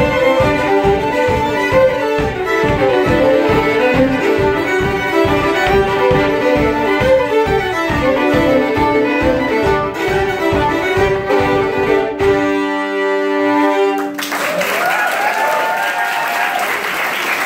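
Three fiddles playing a fast jig together over a steady low beat, closing on a held chord about thirteen seconds in. Audience applause and cheering follow.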